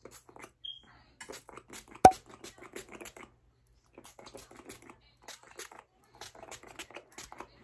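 Handheld pump spray bottle being pumped over and over in quick runs of short spritzes, with a brief pause in the middle. One sharp, loud click about two seconds in stands out above the spraying.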